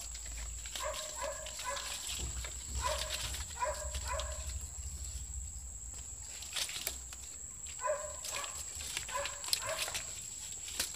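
Coconut-palm leaflets crackling and rustling as they are handled and woven by hand, with sharp dry clicks here and there. Behind it, an animal gives short pitched calls in small clusters of two or three, several times.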